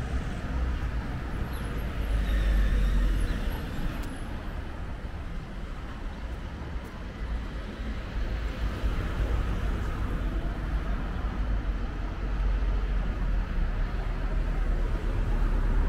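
Town street ambience with motor traffic passing and a steady low rumble; the traffic swells louder about two seconds in and again near the end.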